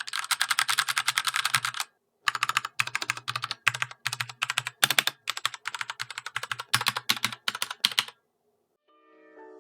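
Typing on a Ducky One 2 Rosa mechanical keyboard with Cherry MX Red switches and double-shot PBT keycaps. A fast, continuous run of keystrokes stops about two seconds in, then typing comes in short bursts with brief pauses and stops about eight seconds in. Soft background music fades in near the end.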